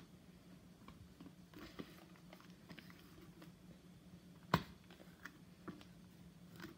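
Plastic lid being pressed and worked onto a plastic cup: faint scattered clicks and taps, with one sharp click about four and a half seconds in, over a faint steady hum.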